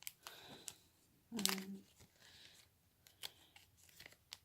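Trading cards and crinkly plastic and foil packaging being handled: light rustling and scattered small clicks and ticks. A brief wordless vocal sound comes about a second and a half in.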